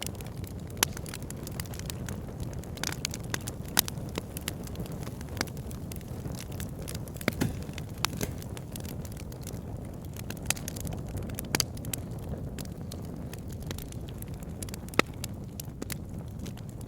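Fire crackling in a fireplace: a steady low rumble of the flames with irregular sharp pops and snaps, a few of them louder than the rest.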